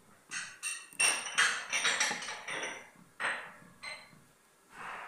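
A stirring utensil knocking and clinking against the side of a metal cooking pot of thick milk-and-rice pudding, about ten sharp clinks with a short metallic ring.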